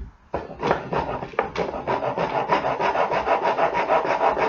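Hand rasp filing wood with quick back-and-forth scraping strokes, about five or six a second, starting about half a second in. A wooden part of a lamp stand is being rasped down to size.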